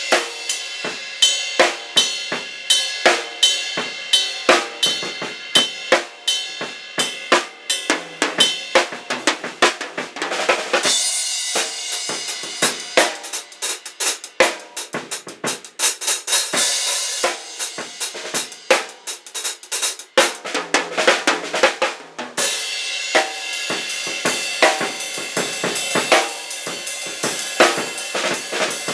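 Acoustic drum kit played freely with sticks: dense snare, tom and bass drum strokes with Zildjian cymbals. The cymbals wash more heavily through the middle, and the playing breaks off briefly about two-thirds in before going on.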